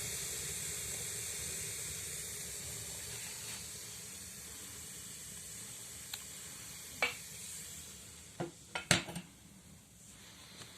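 Damp firewood hissing and sizzling as it burns in a wood stove's firebox, the hiss slowly fading. Several sharp clicks and knocks come between about six and nine seconds in, the loudest near nine seconds.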